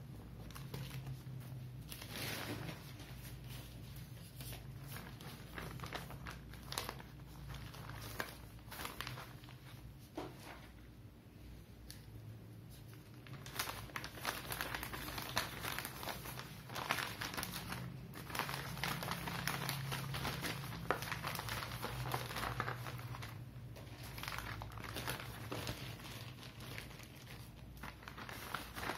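Thin plastic courier bags crinkling as they are handled, in an irregular run of crackles that thins out for a few seconds about a third of the way through, then grows busier.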